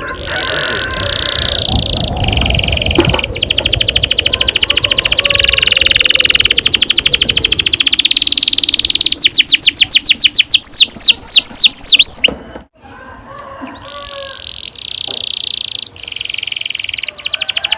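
Domestic canary singing a long rolling song: rapid trills held for several seconds at a time, closing with a run of quick downward-sweeping notes about twelve seconds in. After a brief pause the trilling starts again.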